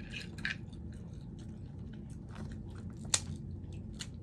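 A person chewing and biting food close to the microphone, with many small wet clicks and crunches and one sharp click about three seconds in.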